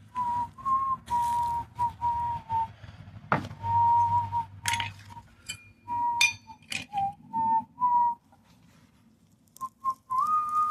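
A person whistling a tune: a string of short held notes at slightly different pitches, with one higher held note near the end. A few sharp knocks and scrapes from digging in soil come in between, the loudest about three and a half seconds in.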